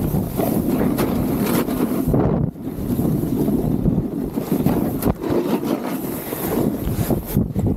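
Gnu Headspace snowboard sliding and scraping over chopped-up snow, with wind rushing over the microphone. The noise drops briefly about two and a half seconds in and again near the end.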